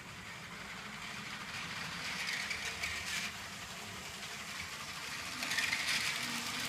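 LEGO Power Functions train running on plastic track, a steady rattling whir of the motor and wheels that grows louder a couple of times, most of all near the end.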